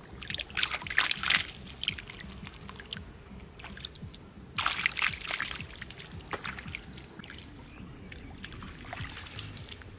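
Splashing and sloshing in shallow muddy floodwater as hands grab at fish and bare feet wade through it. The loudest splashes come about a second in and again around five seconds.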